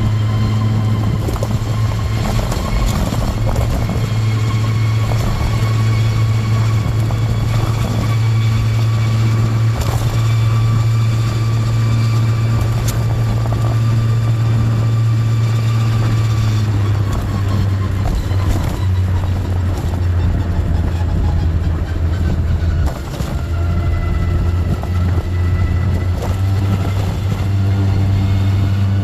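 Canopy scooter riding along with a steady, loud low buzzing drone over the engine, the 'boo' abnormal noise that appears above about 20 km/h. The drone weakens and the engine tones fall a little about two-thirds of the way in, with a brief drop shortly after.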